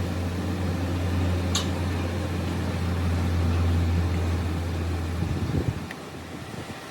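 A workshop machine's electric motor hums steadily and low, then is switched off about five seconds in. There is a brief hiss about one and a half seconds in.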